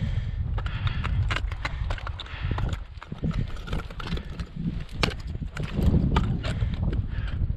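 Hiking boots stepping and scuffing on bare granite in an uneven rhythm of short knocks and clicks, with a gloved hand gripping and handling a steel cable lying on the rock, over a steady low rumble.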